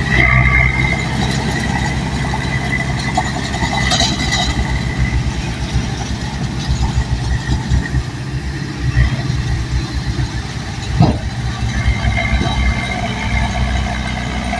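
Bulldozer's diesel engine running steadily with a low, pulsing drone. A short clatter comes about four seconds in, and a brief falling whine about eleven seconds in.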